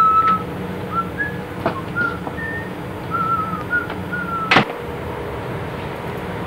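A person whistling a tune in short, wavering notes, which stops a little past four seconds in, followed by a single sharp knock. A steady low hum runs underneath.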